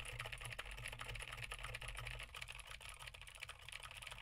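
Mechanical keyboard with clicky Gateron Blue switches being typed on steadily, a fast irregular run of faint key clicks. It is picked up from the side by a dynamic vocal microphone that is rejecting much of the noise.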